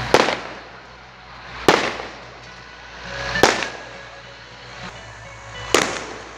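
Firecrackers going off: four sharp bangs about every two seconds, each with a short swell before it and a ringing tail after.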